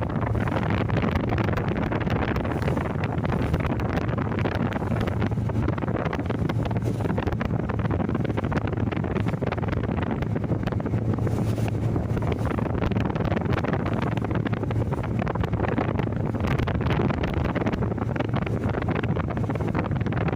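Wind blowing across the microphone: a steady low rumble with a rushing hiss above it, unbroken throughout.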